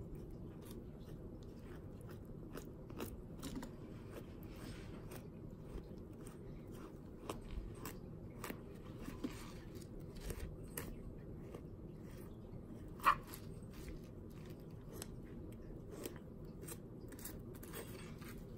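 Fillet knife cutting a rock bass's meat away from the rib bones: scattered small crunching clicks as the blade passes over bone, with one sharper click about two-thirds of the way through.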